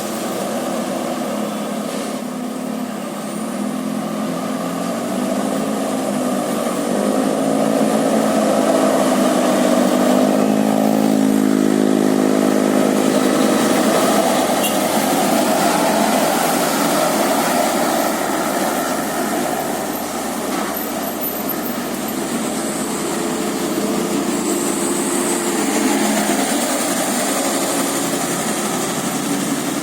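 Bus diesel engine running in road traffic, its pitch wavering up and down about a third of the way in as the engine revs and eases off.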